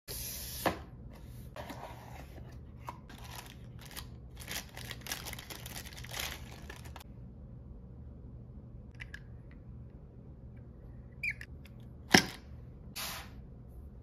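Unboxing noises: a small cardboard box is opened and its packaging handled in a run of rustling and scraping for about the first seven seconds. Then come a few light clicks and a single sharp knock about twelve seconds in as things are set down on the table.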